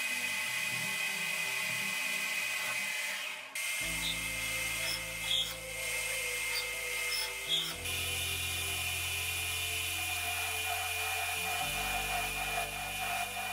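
Metal lathe running while a carbide tool cuts a spinning steel bar, turning and then facing its end, followed by a twist drill boring into the centre of the bar. The machining sound is steady but changes abruptly several times, with a steady high whine that breaks off about three and a half seconds in.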